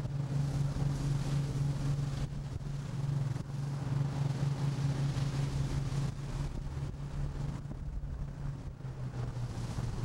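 Steady low drone of a fishing boat's engine running at sea, mixed with gusting wind on the microphone and the rush of breaking seas.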